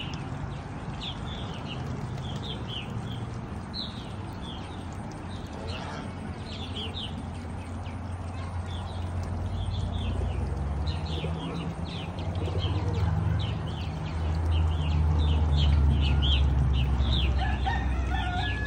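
Birds chirping: many short, high chirps, several a second, throughout. A low rumble grows louder over the second half.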